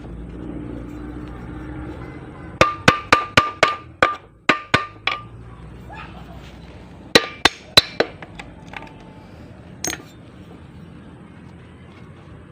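Hammer striking metal in quick runs, each blow with a short metallic ring: about seven fast blows, then two, then three, then a single one near the end. The hammering is driving out the front bearing of a manual gearbox whose worn bearing makes it growl.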